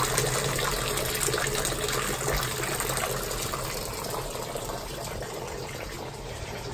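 Steady rush of running water, fading gradually over a few seconds.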